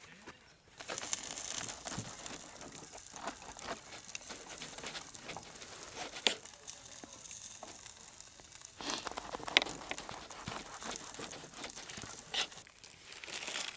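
Crinkling and rustling handling noise with a few sharp clicks, the loudest about six and nine and a half seconds in.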